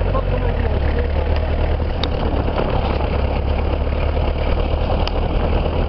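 A jeep's engine running with a steady low drone, heard from on board the open vehicle, with a few light clicks about two and five seconds in.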